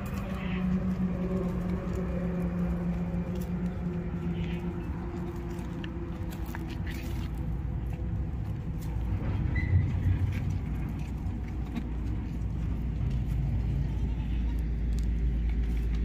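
A steady low engine hum, with a deep rumble that grows louder over the last few seconds.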